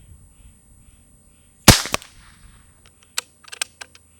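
A single sharp shot from a Beeman QB Chief .22 pre-charged pneumatic air rifle, followed a little over a second later by a few short clicks.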